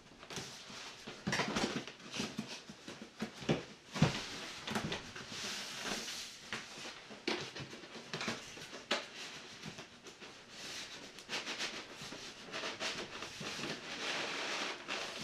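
Large cardboard box and its packing being handled: rubbing, scraping and knocking as the contents are worked out of the snug-fitting box, with a sharp thump about four seconds in.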